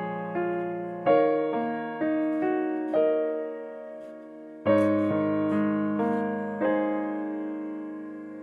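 Background piano music: a slow melody of single notes and chords struck about once a second, each ringing and fading before the next.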